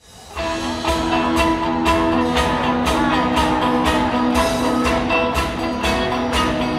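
Live band playing an instrumental passage: drums keep a steady beat of about two hits a second under held chords and bass, fading in over the first half second.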